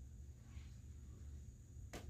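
Near silence: quiet room tone with a steady low hum, and a single sharp click just before the end.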